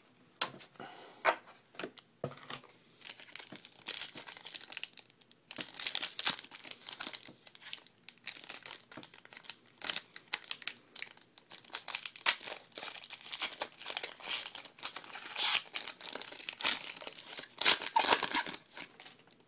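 Plastic foil trading card pack wrappers crinkling and tearing as packs are handled and opened, with irregular crackles and a few louder bursts.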